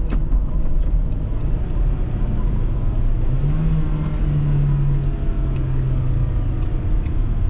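Steady low road and engine rumble inside a moving car's cabin. About three seconds in, a low humming note joins, steps slightly lower and fades out about three seconds later.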